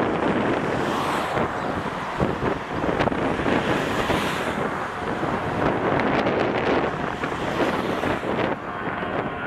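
Swiss Airbus A340 climbing out after takeoff: the four jet engines give a steady, uneven roar that rises and falls in level, mixed with wind buffeting the microphone.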